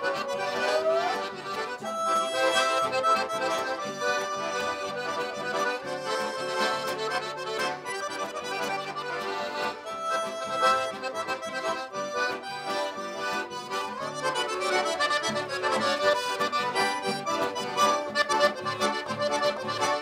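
Several accordions, piano and button accordions together, playing an instrumental vaneira, a lively Brazilian gaúcho dance tune, with an acoustic guitar strumming along.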